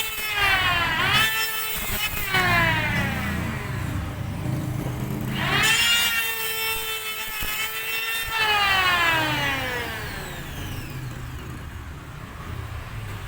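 APR wood planer's motor spinning up with a rising whine and then winding down with a long falling whine after switch-off, twice: a quick restart about a second in, then a longer run starting about halfway through that coasts down near the end.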